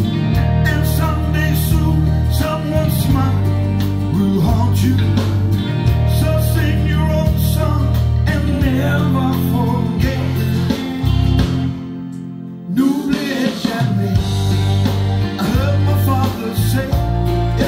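A pop-rock song with singing and guitar played through a pair of 1980s B&W DM330 floorstanding loudspeakers, heard in the room. The music briefly thins out and drops its bass about twelve seconds in, then comes back in full.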